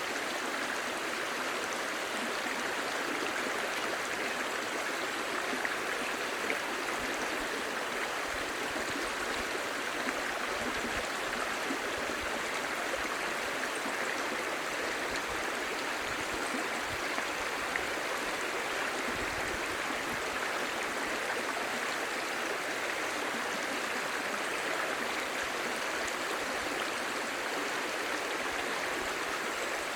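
A clear, shallow stream babbling over stones: steady running water.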